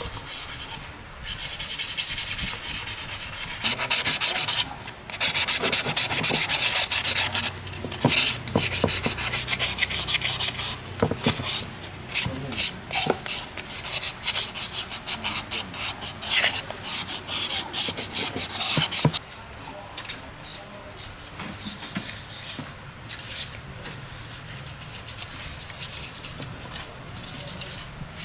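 Hand sanding, rapid back-and-forth rasping strokes that come in spells, stopping and starting; heaviest through the middle and lighter in the last third. Surface preparation during an old diesel engine's restoration.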